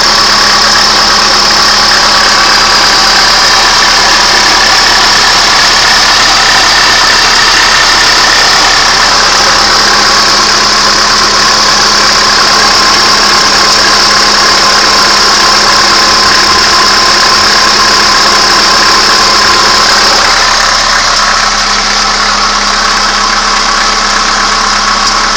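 2002 Hyundai Accent engine idling steadily with a clicking noise in the engine. It becomes a little quieter about 21 seconds in.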